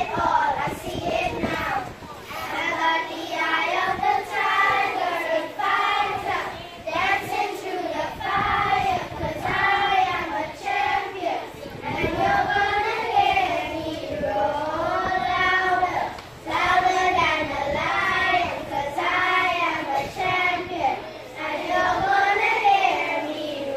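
A group of schoolchildren singing a song together.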